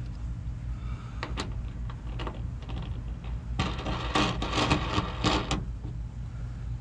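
Small clicks and rattles of a crossbar dent puller's metal bridge and plastic knobs being handled: a few single clicks, then about two seconds of dense clicking and scraping from the middle on as the centre knob is fitted onto the threaded pull stud. A steady low hum runs underneath.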